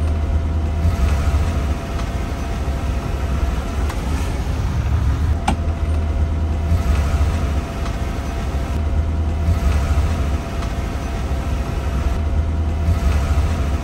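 Snowcat's engine and tracks running steadily, heard from inside its cabin: a constant low rumble, with one sharp click about five and a half seconds in.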